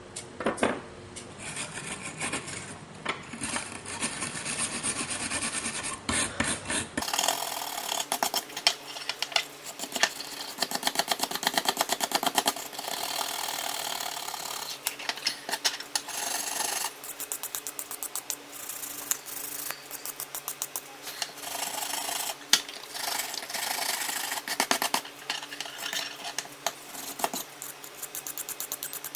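Rapid back-and-forth scraping and rubbing strokes of hand abrasive work on the metal of a pair of kitchen scissors, stopping briefly now and then.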